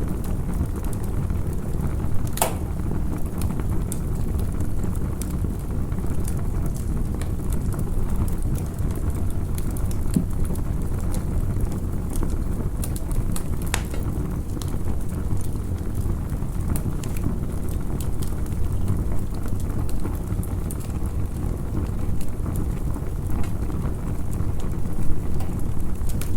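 Campfire burning: a steady low rumble with scattered crackles and pops, one sharper pop a couple of seconds in.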